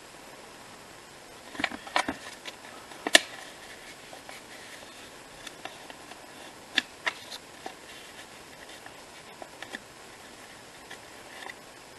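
Small pieces of acrylic-painted card being handled, flexed and set down on a desk, giving scattered light taps and paper rustles; the sharpest tap comes about three seconds in.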